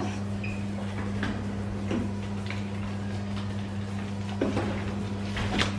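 Induction hob's touch controls being pressed to turn a cooking zone up: a short beep about half a second in and a few light clicks, over a steady low electrical hum.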